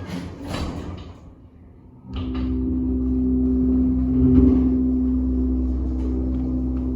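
Old Westinghouse elevator starting up: a brief rattle in the first second, then about two seconds in the hoist motor starts with a steady hum and low rumble as the car rises.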